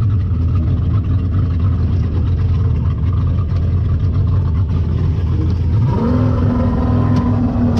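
Motorboat engine running with a strong low hum; about six seconds in, its pitch climbs and then holds at a higher steady tone as it revs up.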